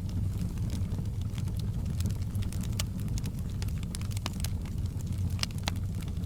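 Fireplace fire burning: a steady low rumble of flames with frequent sharp crackles and pops of burning wood.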